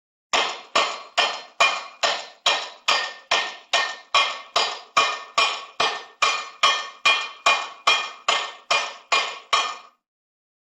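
Cartoon hammering sound effect: a sharp hit repeated at an even pace, about two and a half a second, some twenty times, each with a short ring. It stops abruptly just before the end.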